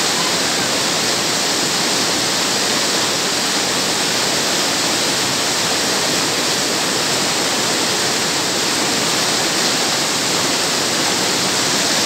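River rapids rushing steadily over boulders close by, a continuous loud whitewater noise.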